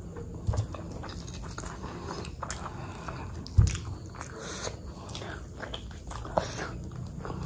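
Close-miked chewing of a mouthful of mutton curry and rice, with many short wet clicks and crackles as the fingers pick through the rice and curry. A dull thump about halfway through is the loudest sound.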